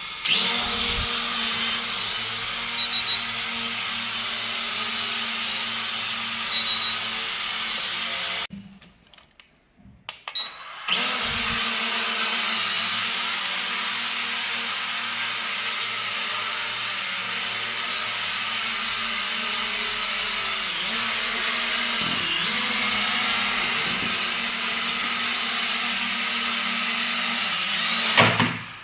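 M3 Max quadcopter drone's brushless motors and propellers running with a steady high-pitched whine. The sound drops away for about two seconds roughly a third of the way in, then comes back and cuts off near the end.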